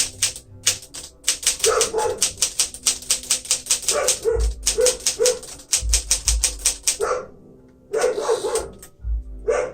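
Typing on a 1957 Smith-Corona Silent-Super manual typewriter: quick runs of sharp key-strike clicks at several a second, with a brief pause a little after seven seconds before typing resumes.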